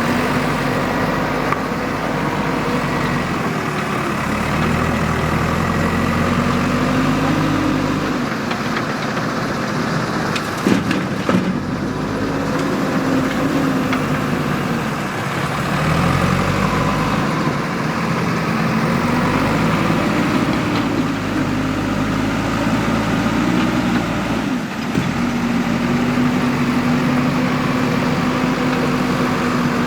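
Diesel engine of a JCB 3DX backhoe loader working, its revs rising and falling every several seconds as it takes load, with a few sharp knocks about eleven seconds in.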